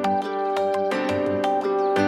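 Background music: a gentle piece of plucked-string notes played several to the second over held tones.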